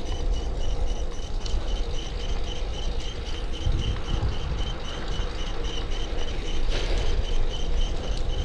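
Bicycle drivetrain with an over-tightened chain, making a rapid, regular high chirping as the pedals turn. Under it runs a steady low rumble of tyres and wind.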